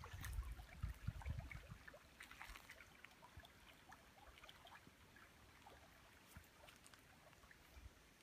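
Near silence: faint outdoor garden ambience. A low rumble on the microphone fades out about two seconds in, leaving a faint hiss with scattered faint ticks.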